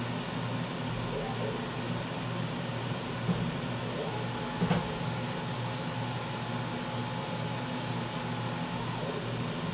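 Maxcut M1100 vertical machining centre running with a steady mechanical hum during a tool-probing cycle. A steady whine joins in about four seconds in and stops about nine seconds in, and there are two short clicks just after three seconds and just before five seconds.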